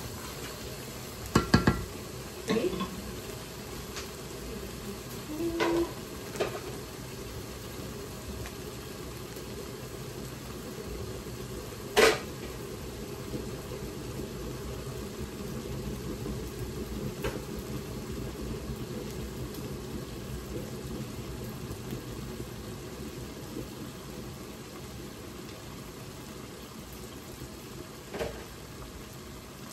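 A pot of stew cooking on low heat with a steady sizzle, and now and then a utensil clinking and knocking against the pot or a bowl. The loudest knock comes about twelve seconds in.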